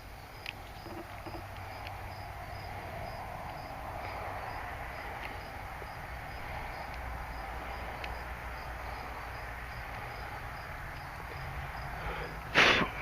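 Faint scratching and small ticks of a nail scraping corrosion out of a horn wiring connector, with crickets chirping steadily in the background and one short loud noise near the end.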